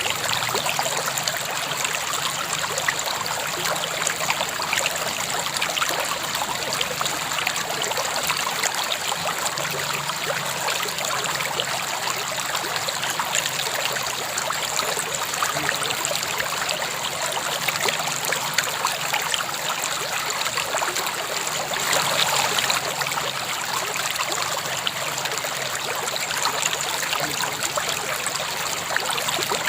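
River water flowing steadily over rocks, a continuous babbling and splashing with many small trickles, slightly fuller about twenty-two seconds in.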